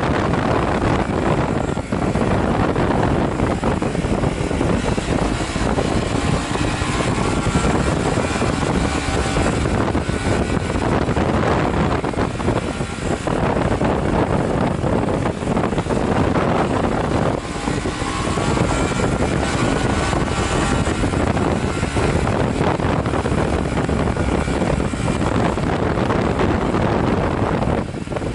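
Honda Varadero 125 motorcycle on the move, its small V-twin engine running under heavy, steady wind rush on the bike-mounted microphone.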